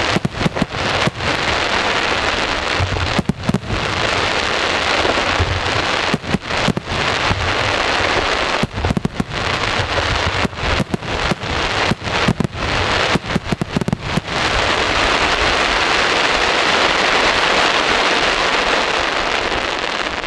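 Aerial fireworks display: a dense, continuous crackle with many sharp bangs through the first two-thirds, giving way to an unbroken crackling wash near the end.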